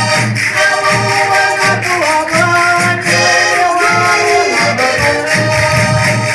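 Minho folk dance music: a concertina plays a lively tune with held chords over a steady percussion beat and jingling percussion.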